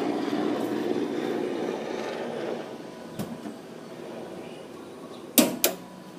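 Two sharp clunks a fraction of a second apart, a little after five seconds in, from the 1995 Nissan Quest minivan being opened up to get at the engine. Before them there is faint background noise and a small click.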